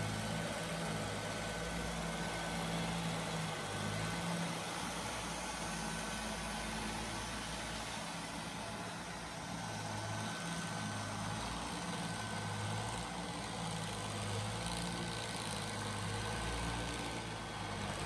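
Neato Botvac D-series robot vacuum running, its motors giving a steady hum with a thin high whine above it. The low part of the hum swells and fades now and then as it works.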